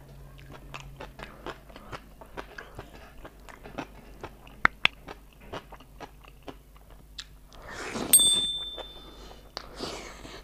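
Close-up eating sounds of rice and egg curry eaten by hand: wet chewing with many small mouth clicks and lip smacks. About eight seconds in comes a loud noisy swell with a brief ringing tone.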